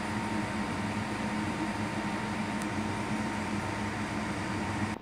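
Electric fan running steadily: an even low motor hum with an airy hiss and a thin steady tone above it.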